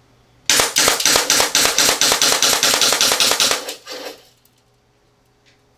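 VFC Glock 42 gas blowback airsoft pistol, run on green gas, fired in a fast string of sharp clacks for about three seconds as the slide cycles each shot, with one fainter clack just after the string stops.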